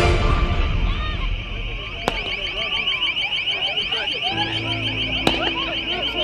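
A fast, evenly pulsing high electronic alarm tone, like a car alarm, starts about two seconds in and keeps going, over people shouting in a crowd. Two sharp bangs cut through, one about two seconds in and one about five seconds in, amid tear-gas smoke.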